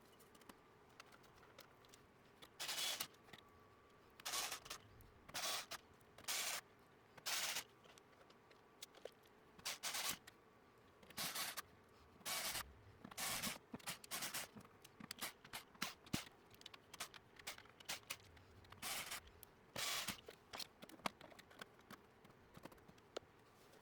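A dozen or more short hissing bursts from an aerosol can, each under half a second and irregularly spaced, with small handling clicks between them. These are spray bursts during the final cleaning of the synthesizer's contacts and connectors.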